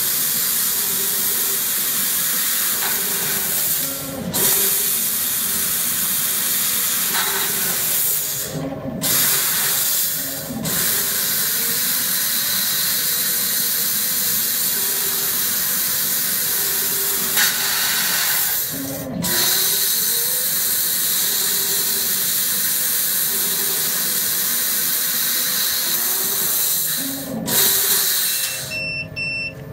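Laser tube-cutting machine cutting a metal round tube: a loud, steady hiss from the cutting head's gas jet and the cut. It breaks off briefly about five times, each time with a short low whir as the head and chuck move between cuts. Near the end the hiss stops and a few short beeps sound.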